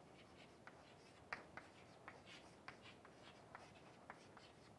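Chalk on a chalkboard while words are written: a faint string of short, irregular taps and scratches, the strongest about a second in.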